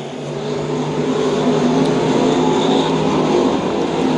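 A field of dirt-track stock cars racing past under power, their V8 engines running hard together. The engine sound grows louder over the first second or so, then holds steady.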